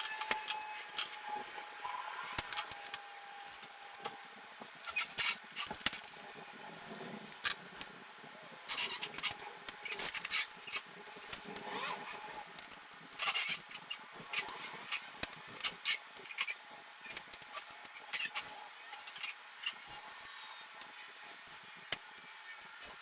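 Irregular clicks, taps and knocks of metal hardware and hand tools being handled while a push-bar exit device is taken apart and fitted, in clusters with short pauses between.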